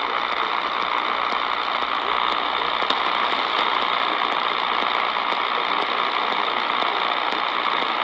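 Eton Elite Traveler portable radio tuned to 570 AM, giving out a steady hiss of static with faint scattered clicks and crackle.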